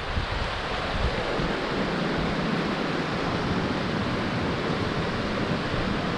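Steady rushing of a small mountain creek flowing over stones, with gusty wind rumbling on the microphone underneath.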